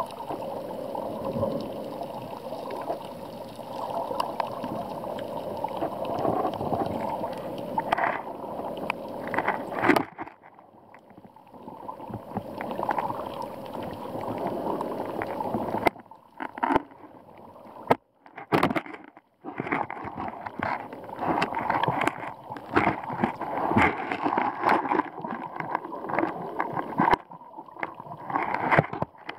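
Muffled sloshing and gurgling of shallow seawater recorded under water, full of irregular crackles and clicks. The sound drops away briefly a third of the way in and twice more just past the middle.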